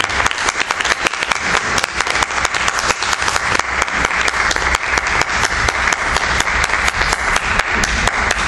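Audience applauding steadily, a dense crowd of hand claps.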